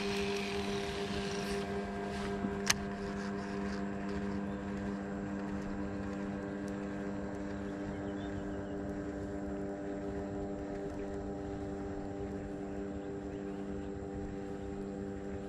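Small boat engine running steadily at low speed, an even drone. There is a brief hiss at the start and a single sharp click about two and a half seconds in.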